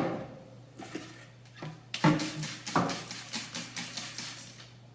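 Trigger spray bottle squirting a bleach-and-water solution into a plastic planter bucket: a run of quick short sprays, about three or four a second, starting about two seconds in, over a steady low hum.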